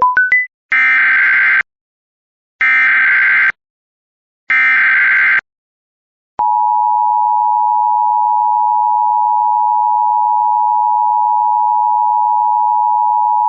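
Emergency Alert System tones. A quick rising run of beeps is followed by three identical SAME header data bursts, each just under a second long with a short silence between. About six seconds in, the steady two-tone EAS attention signal (853 and 960 Hz) starts and holds.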